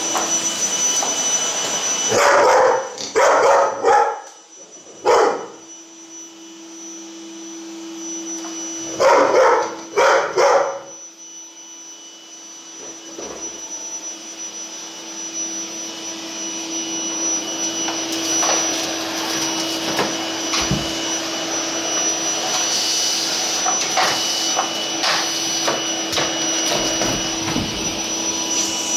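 Vacuum cleaner running with a steady whine while a Labrador barks at it in two loud bouts of several barks, about two seconds in and again about nine seconds in. Later the vacuum's noise grows louder and rougher, as when it is working close by.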